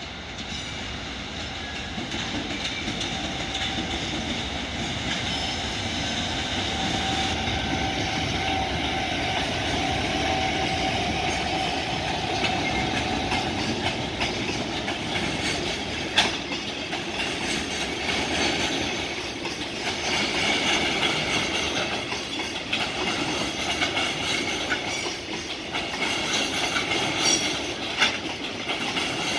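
A container freight train hauled by a JR Freight EF510 electric locomotive rolls past, its wheels rumbling and clattering over the rails. A steady whine sounds for several seconds as the locomotive nears. In the second half the container flat wagons go by with a few sharp clicks.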